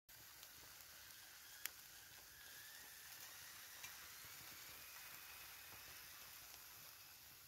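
Marinated chicken faintly sizzling on the grate of a small folding metal stove over glowing embers, a steady hiss with two small pops, the first about a second and a half in.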